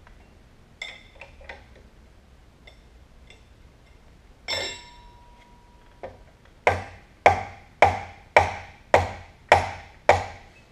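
A hammer striking the cast-iron head of an old Canedy & Otto drill press: one metallic clank with a brief ring, then a run of seven sharp, evenly spaced blows, a little under two a second, each ringing briefly. A few light clicks of handling come before.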